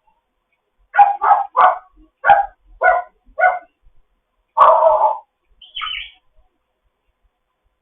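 African grey parrot vocalizing: a run of about seven short, loud calls, then a longer call, then a short falling whistle.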